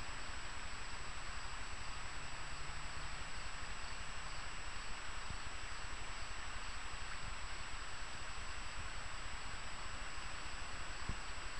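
Steady outdoor ambience: an even hiss with a constant, thin, high-pitched tone over it, and a couple of faint knocks late on.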